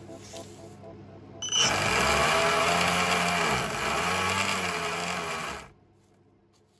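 Brushless motor of a 3D-printed cigarette stuffing machine running as it drives tobacco into a cigarette tube. It starts suddenly about a second and a half in, its pitch dips and rises, and it cuts off abruptly after about four seconds.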